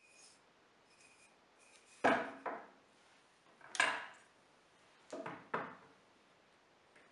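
Wooden block, one-handed bar clamp and metal combination square being handled on a wooden workbench: about five sharp knocks with a short ring, in three groups, as the block is clamped down and the square set on it, with a few faint ticks before them.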